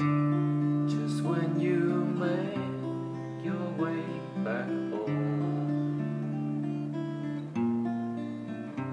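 Cutaway acoustic guitar played in chords, the chord changing about every two and a half seconds.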